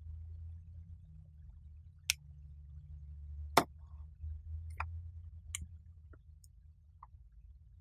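Sharp, separate clicks and taps of a metal tool working against a power-supply circuit board while a component is being desoldered, the loudest about three and a half seconds in, over a low steady hum.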